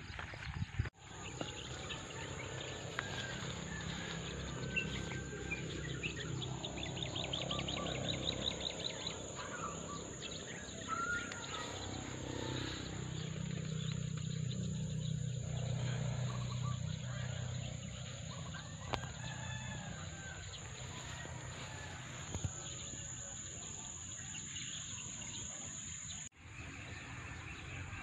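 Outdoor farm ambience: birds calling and a rooster crowing over a steady background hum and a thin high drone. The sound drops out briefly about a second in and again near the end.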